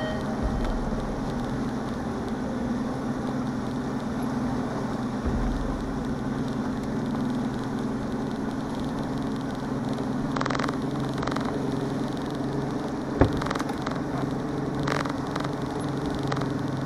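Bass boat's outboard motor running steadily at low speed, a steady low hum, with water and hull noise. A single sharp click about two-thirds of the way through.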